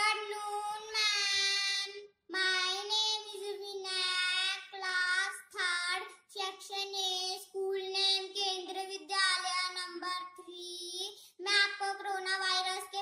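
A young boy singing unaccompanied, in phrases of long held notes broken by short pauses for breath.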